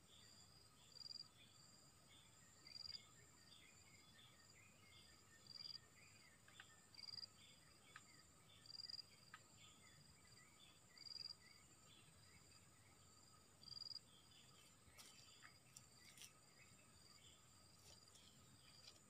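Faint insect chorus: steady high-pitched buzzing, with a short, higher chirp repeating every two seconds or so and scattered small chirps. A few faint clicks near the end.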